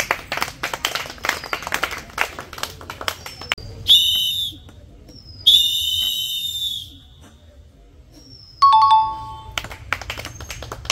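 Ping-pong ball bouncing on a board and plastic bowls in quick, irregular clicks for about three seconds. Two bright electronic chimes follow, about four and five and a half seconds in, then a short two-note ding near the end.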